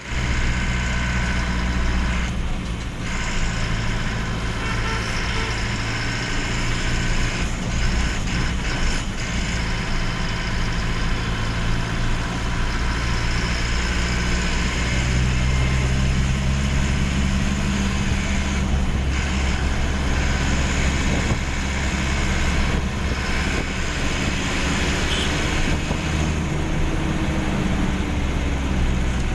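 A vehicle engine running steadily with a low hum, with the noise from its air-intake snorkel that is being recorded as a fault.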